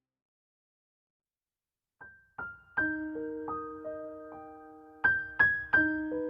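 Background solo piano music: after about two seconds of silence, a slow piano piece begins with single notes, building to firmer chords about five seconds in.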